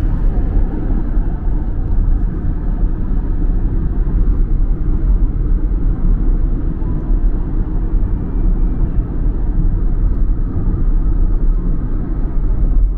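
Steady low rumble of an intercity train in motion, heard from inside the carriage.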